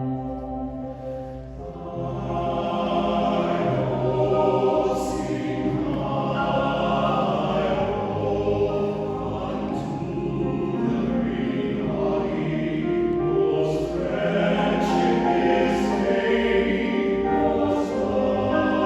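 A choir singing in several parts, holding chords that shift every second or two, with the hiss of sung consonants coming through now and then.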